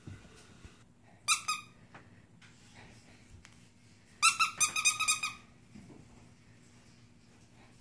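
Squeaky dog toy being squeezed: two short high squeaks, then a quick run of six or seven squeaks about four seconds in.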